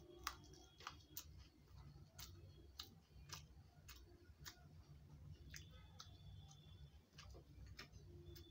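Faint, irregular wet clicks and smacks of a person chewing a mouthful of rice and vegetables, about one or two a second, over a low steady hum.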